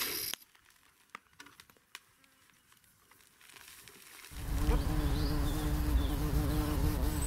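Near silence with a few faint clicks for about three seconds, then a steady low buzzing hum sets in about four seconds in and holds.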